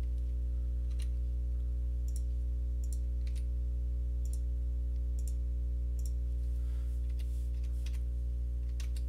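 Sharp, scattered computer mouse clicks, about eight in all, over a steady low electrical hum.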